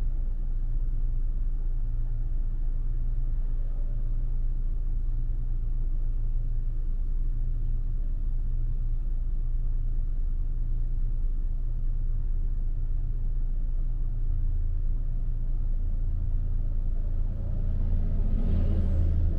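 Toyota FJ Cruiser's V6 idling while stopped in traffic, a steady low rumble. About 17 seconds in, a bus passes close alongside, briefly louder and brighter.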